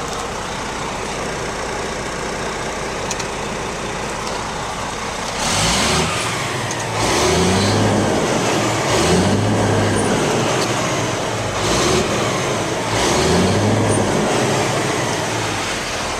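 Cat C-10 diesel engine of a 2002 Kenworth T800 mixer truck running steadily, then its engine speed rising and falling several times from about five seconds in.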